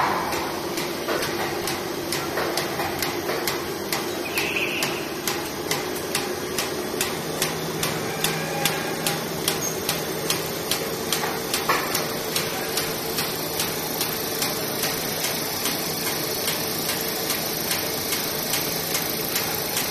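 Haosheng HS-1400A roll-paper sheeting machine running: a steady mechanical hum with an even rhythm of sharp clicks, about two to three a second, as it cycles.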